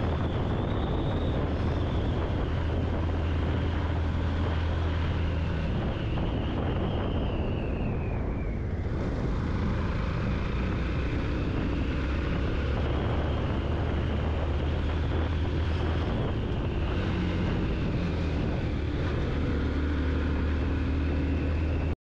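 Yamaha FZ-X motorcycle's single-cylinder engine running steadily on the move, with wind rushing over the rider's microphone. The wind noise eases about eight seconds in and then builds again.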